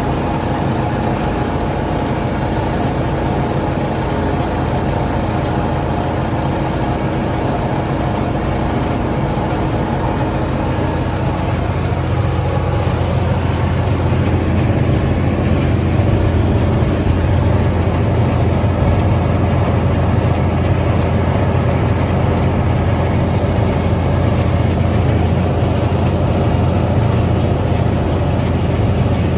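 Tractor engine running steadily while baling hay, with a deep low hum, getting a little louder about halfway through.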